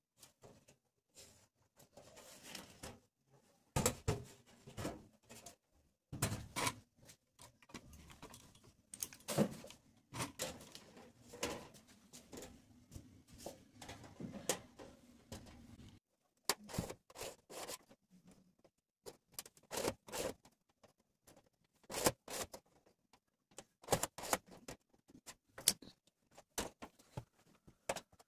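Sheet tinplate cut from a mustard oil tin being handled and pressed by hand, giving irregular clicks, taps and knocks of thin metal.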